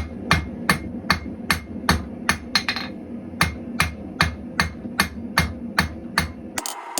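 Hand hammer striking hot 1/4-inch square stainless steel bar stock on an anvil, about two and a half blows a second, over a steady hum, drawing the end out thin and to a point. Near the end the hammering and hum cut off abruptly and a faster, lighter ticking begins.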